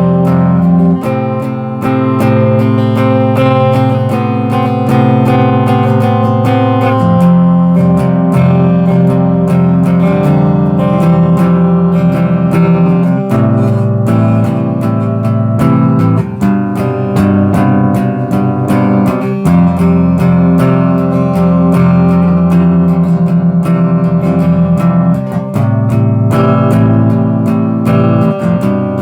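Epiphone SG Standard electric guitar in open FACGCE tuning, played through a Hartke HD15 bass amp: a continuous riff of quickly picked ringing notes over low notes that shift every few seconds.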